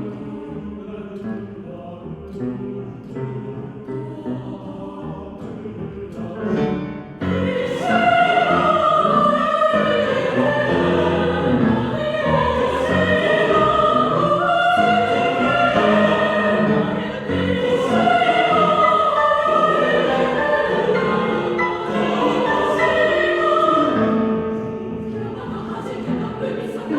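Mixed choir singing with piano accompaniment in a concert hall. A softer passage swells suddenly about seven seconds in to loud, full sung chords, then eases off near the end.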